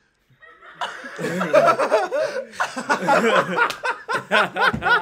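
Several men laughing hard together, bursting out about a second in and going on to the end.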